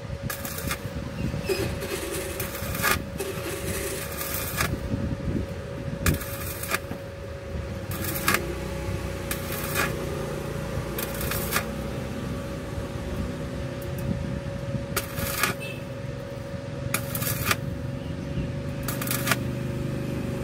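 Electric arc welding on a truck's exhaust pipe: repeated short bursts of sizzling crackle, each under a second, at irregular intervals. A steady hum and a low rumble run underneath.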